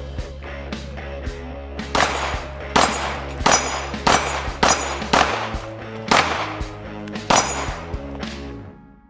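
A string of rifle shots hitting AR500 steel gong targets, each hit giving a sharp metallic clang that rings on briefly. The hits come about every half second to second, mostly in the second half. Background music runs underneath and fades out near the end.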